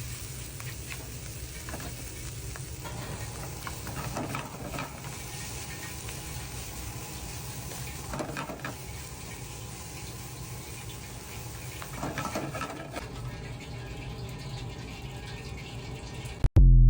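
Egg fried rice sizzling in a hot pan, with a spatula stirring and scraping through it every few seconds.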